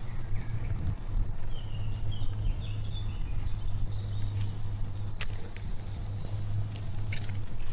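Steady low rumble of wind and riding noise on a phone microphone carried on a moving bicycle, with faint bird chirps about two seconds in and a few sharp clicks in the second half.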